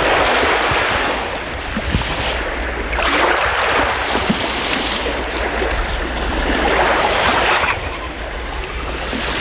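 Baltic Sea surf: waves washing onto the beach, swelling and falling back in surges every few seconds, over a steady low rumble.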